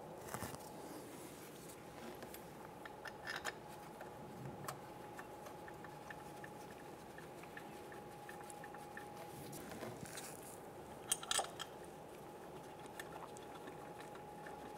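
Faint scattered clicks and light taps of bolts being handled and threaded by hand into an aluminium engine oil cooler, with a cluster of sharper clicks about three quarters of the way through.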